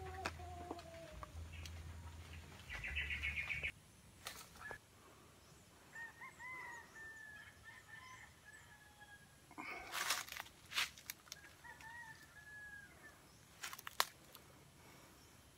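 Roosters crowing faintly, several long calls that sag slightly in pitch. About three seconds in, a brief flurry of wing flaps, the shot bird fluttering in hand, and a few handling clicks.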